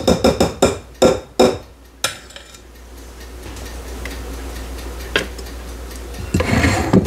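A spoon knocking and clinking against dishes several times in quick, uneven succession during the first two seconds as pudding is scooped into a glass trifle bowl, followed by softer scraping and handling sounds as it is spread.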